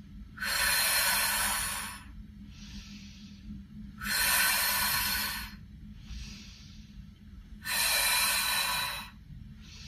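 A woman's forceful breaths out, three of them about every three and a half seconds, each lasting about a second and a half, with softer breaths in between. This is exertion breathing: she breathes out with each push of a leg against a resistance band.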